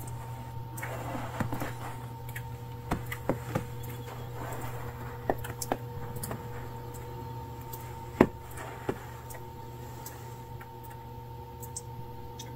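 A steady low hum with a faint high tone over it, and scattered sharp ticks and clicks, the loudest about eight seconds in.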